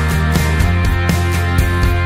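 Background music with a steady, quick beat.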